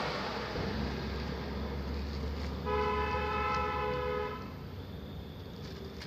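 A telolet horn sounds one steady, held chord for about a second and a half near the middle, over the low rumble of a vehicle's engine.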